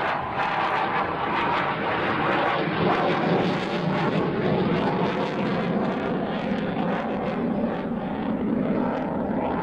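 Steady, loud jet engine noise from a US Navy Blue Angels F/A-18 Hornet's twin turbofans, heard as the jet flies and banks.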